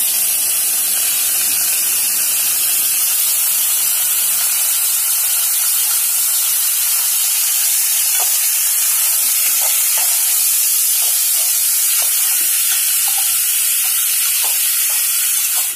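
Raw chicken pieces sizzling as they sauté in hot sesame oil, a loud steady hiss. From about eight seconds in, a few light clicks of a steel spatula stirring against the aluminium pot.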